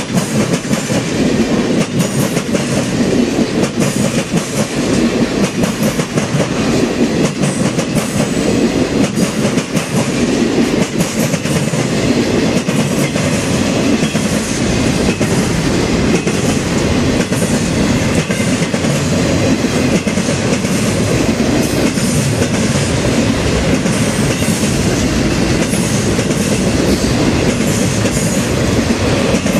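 Ringling Bros. and Barnum & Bailey circus train cars rolling steadily past: a continuous rumble with a rapid stream of wheel clicks over the rail joints.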